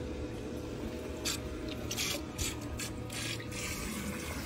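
Water splashing in a boat's livewell as a big largemouth bass is grabbed by hand and lifted out, several short splashes between about one and three and a half seconds in, over a steady low hum.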